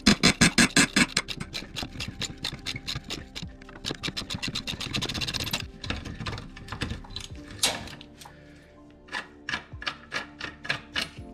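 Ratcheting gear wrench clicking rapidly as it winds out a rusty, heated bolt that has just been broken free, about eight to ten clicks a second. After about six seconds the clicks slow to single, spaced clicks. Background music plays underneath.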